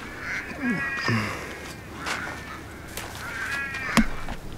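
Crows calling several times, short drawn-out calls spaced a second or two apart. A single sharp knock about four seconds in.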